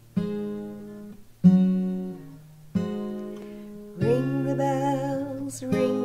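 Acoustic guitar strumming single chords, about one every second and a quarter, each left to ring. A woman's voice begins singing over it about four seconds in.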